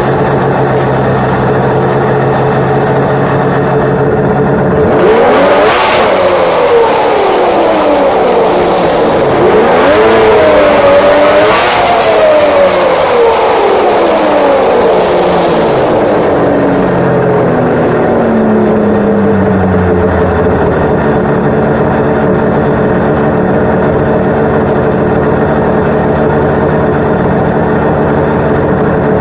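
Arctic Cat ZRT 800 snowmobile's three-cylinder two-stroke engine idling steadily, then revved up and down several times, then settling back to a steady idle. It runs smoothly and holds its idle with the carbs freshly tuned and the idle set.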